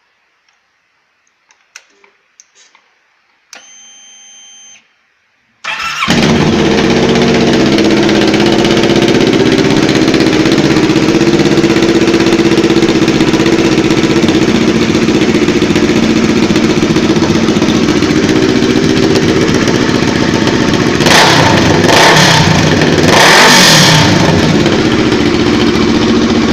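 Kawasaki ER-6n 650 parallel-twin motorcycle engine with a straight-through exhaust: a few faint clicks and a brief steady whine, then it starts about six seconds in and idles loudly, rumbling hard. Near the end the throttle is blipped twice.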